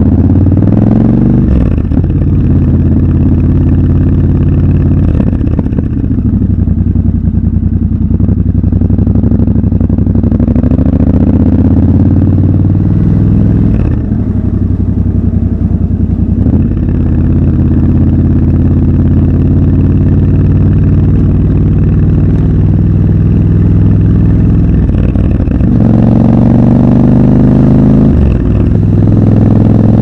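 Triumph Scrambler 1200 XC's 1200 cc parallel-twin engine under way, its note climbing and dropping back several times as the bike accelerates and changes gear.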